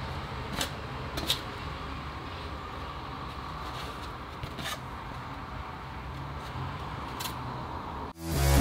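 Steady background hum with a few faint clicks and scrapes as a cut slab of extruded polystyrene foam board is turned over in gloved hands. Music starts near the end.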